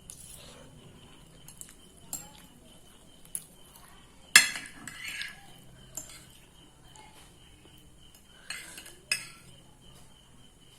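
Eating utensil clinking and scraping against a plate of noodles, in a few sharp separate knocks, the loudest about four and a half seconds in.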